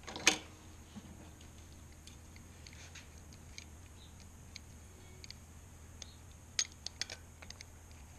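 Handling noises from a wooden board and steel digital calipers: one sharp knock with a short ring about a third of a second in, then scattered light ticks and a quick cluster of clicks a little before the end as the caliper jaws are worked on the board, over a faint low hum.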